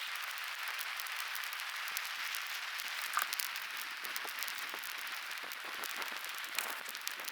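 Wood bonfire burning: a steady hiss with dense, irregular crackling and sharp pops.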